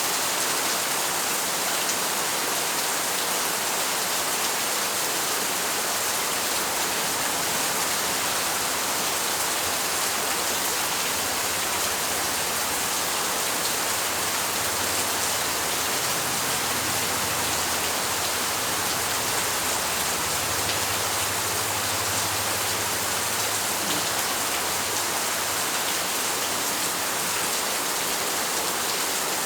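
Steady rain falling, an even hiss of many drops with no let-up. A faint low rumble sits underneath through the middle stretch.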